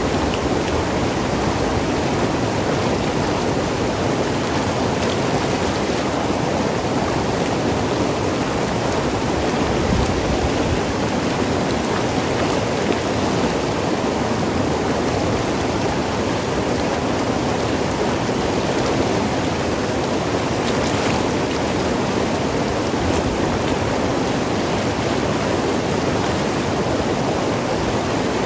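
Mountain river rushing and gurgling over rocks, a steady even flow.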